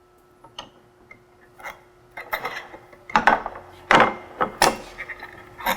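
Metal skewer being fed through the tube of a ski assembly, the parts clicking and knocking as they are handled. Sparse light clicks at first, then a cluster of louder knocks about three to five seconds in.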